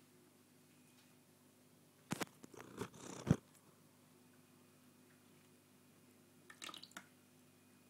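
Empty plastic drink bottle crackling and clicking as a Maine Coon cat rubs its face against it: a cluster of sharp crinkles about two to three seconds in, the loudest near the end of it, and a shorter cluster near seven seconds.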